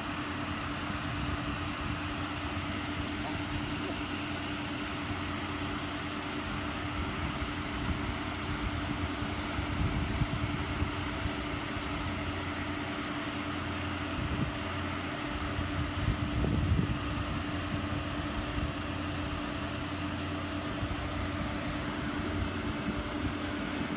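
Steady hum of an idling vehicle engine, with a constant low tone under a low rumble.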